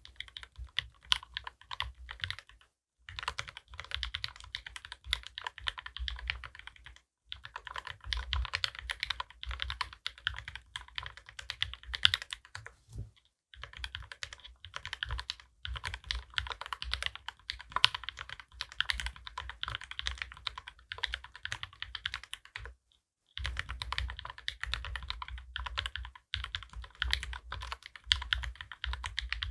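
Fast typing on a Dolinger RE custom mechanical keyboard with a brass plate, its linear switches built from Gateron Ink Black housings and UHMWPE stems, lubed with Krytox 205, under GMK keycaps. Dense runs of keystrokes lasting several seconds, broken by brief pauses about five times.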